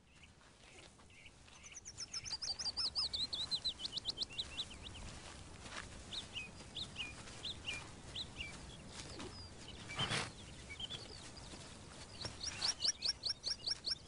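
A small songbird singing. It gives a fast run of high notes that fall steadily in pitch, then scattered single notes, then a quick, evenly repeated trill near the end. A brief rustle comes about ten seconds in.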